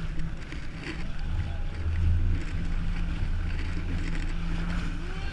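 Jet ski engine running steadily, a low drone.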